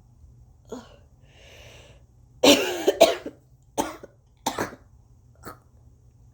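A person with a cold coughing phlegmy coughs: a breath in, then a loud double cough a little past two seconds in, followed by three shorter coughs, the last one faint.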